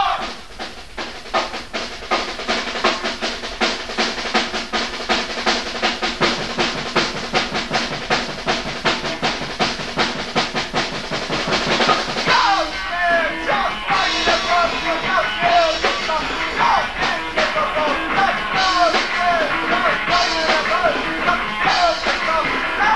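Live rock band playing: a fast, steady drumbeat with bass and guitar, and about twelve seconds in a wavering melodic lead line comes in over the band.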